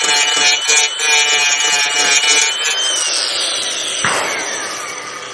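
Ridgid angle grinder running with a high whine that pulses as it works, then switched off about three seconds in and spinning down, its whine falling and fading. A sharp knock about four seconds in.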